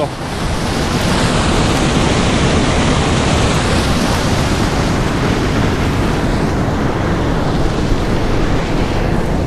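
Steady rushing of churning water flowing out below a spillway, an even noise that does not let up.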